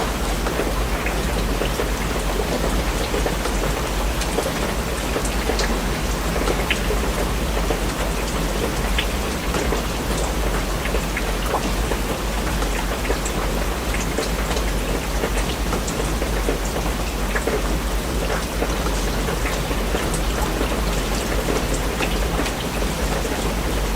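Steady rain falling, with many individual drops ticking and pattering on a surface over an even hiss, and a steady low rumble underneath.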